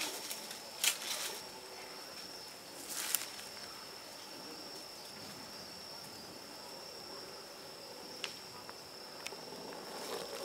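A night insect trilling steadily on one high note. Two brief bursts of noise stand out, about a second in and three seconds in.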